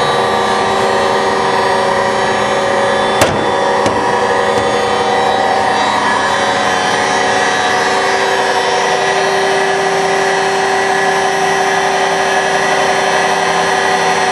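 Load King VB-6036 WL vertical baler's 10 horsepower electric motor and hydraulic power pack running steadily under load as the platen presses down on the compaction stroke. There is a sharp knock about three seconds in and a smaller one shortly after.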